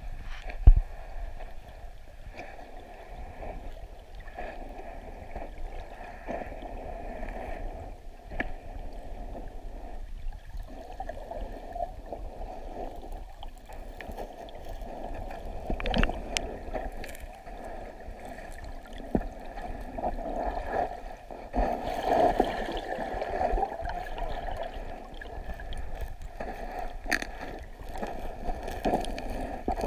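Muffled water noise heard from a camera held underwater in a river: flowing, gurgling water pressing against the camera, with irregular sharp knocks. The loudest knock comes about a second in, and the noise swells around the middle and again near the end.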